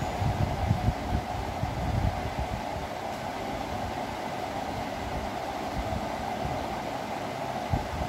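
A steady mechanical hum with a few soft low thumps in the first couple of seconds and one more near the end, from hands handling a chick and its leg ring on a table.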